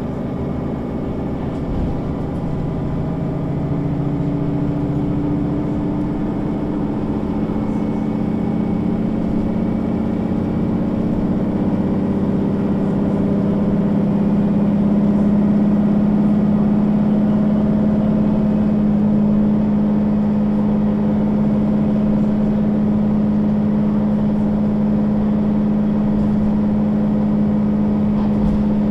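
Mercedes-Benz O 530 G Citaro articulated bus's diesel engine running under way. It grows louder over the first half, then holds a steady drone.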